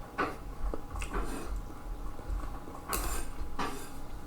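Close-miked eating of pho: a few short wet mouth and chewing sounds, with light clinks of utensils against the bowl.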